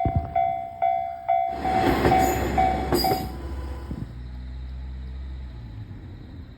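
A Japanese level-crossing warning bell dings about twice a second while a diesel railcar passes noisily over the crossing. The bell stops about three seconds in, and the railcar's engine rumble fades away.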